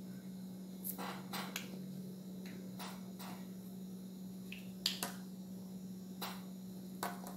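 Small plastic toy parts clicking as they are pressed and snapped together by hand, in about nine sharp, irregular clicks, over a steady low hum.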